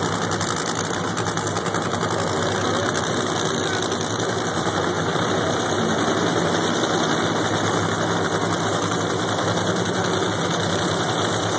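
Drag-race car engines idling at the starting line: a steady, unbroken engine sound with no launch or rev-up.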